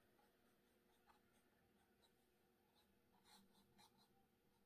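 Near silence, with a few faint, brief scratches of a small filbert paintbrush stroking paint onto a canvas: once about a second in and a few times in quick succession past the middle.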